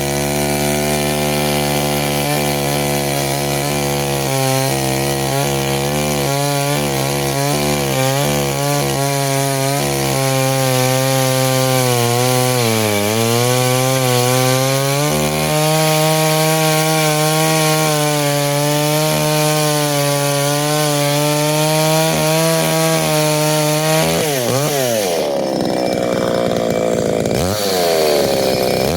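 Chainsaw running at high speed while cutting into a Japanese cedar log. Its pitch sags briefly about halfway through as it takes load, and it drops and climbs back up near the end.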